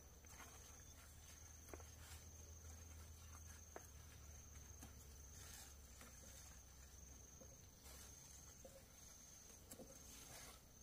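Near silence: a faint steady high-pitched insect tone, with scattered soft clicks and rustles of leaves being handled.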